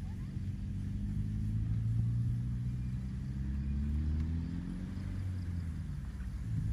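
A vehicle engine running at low speed, a low hum whose pitch slowly rises and then eases back down.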